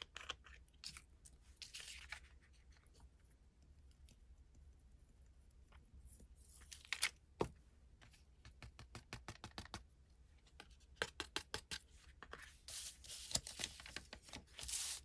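Faint paper rustling with scattered small taps and clicks as a sheet of ledger paper and loose embossing powder are handled on a craft table. A slightly louder rustle comes about halfway through, then quick runs of small ticks.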